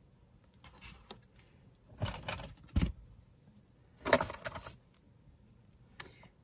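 Metal costume jewelry jingling and clinking in a wooden box as a hand rummages through it, in a few short bursts. The loudest burst comes about four seconds in, with a dull knock just before the middle.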